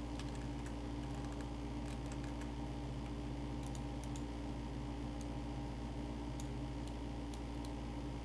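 Scattered clicks of a computer keyboard and mouse over a steady low electrical hum.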